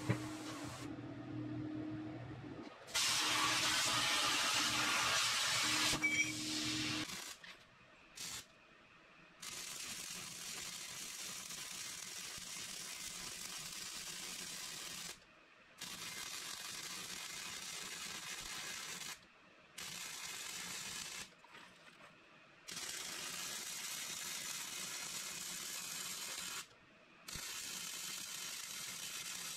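CNC plasma cutting table humming, with a loud steady hiss of the plasma torch cutting steel for about four seconds. Then, about seven seconds in, MIG welding on steel: a steady hiss of the welding arc in runs of a few seconds that stop and restart about five times.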